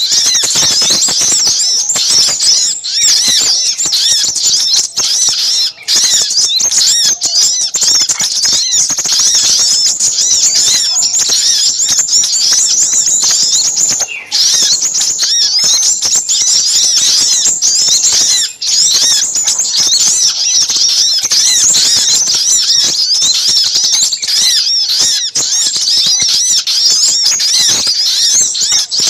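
Bird-lure recording of small birds, sogok ontong combined with sepahraja calls, in a loud, dense and continuous high-pitched chattering chorus, broken by a few very short gaps.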